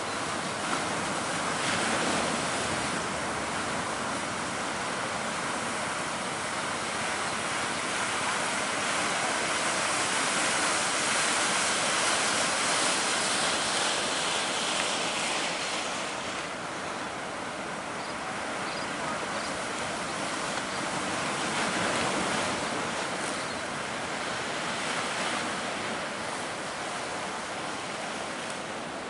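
Heavy surf at a river mouth: a continuous rush of breaking waves that swells and eases every few seconds, with wind on the microphone.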